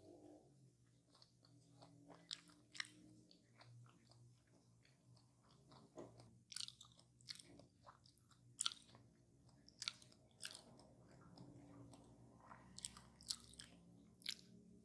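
A person chewing and biting into crisp fried pie crust close to the microphone, with irregular sharp crunches between quieter chewing.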